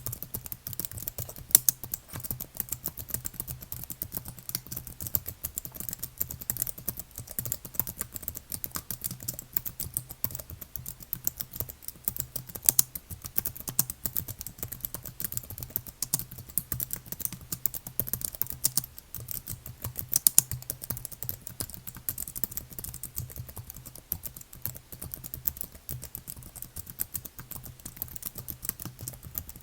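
Continuous typing on a computer keyboard: a dense, steady stream of key clicks, with a few louder keystrokes here and there. A faint low hum sits underneath.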